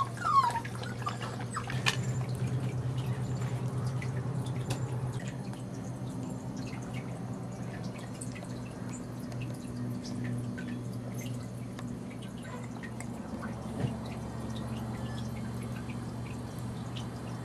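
Water dripping and trickling over a steady low hum, with many small scattered clicks. There is a short falling squeak just after the start.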